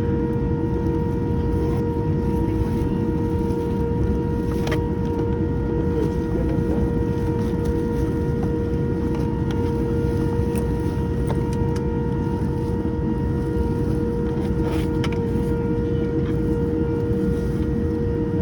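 Boeing 787-10 jet engines heard from inside the passenger cabin: a steady, loud rumble with a constant whining tone that neither rises nor falls. A couple of faint clicks come about five seconds in and again near the end.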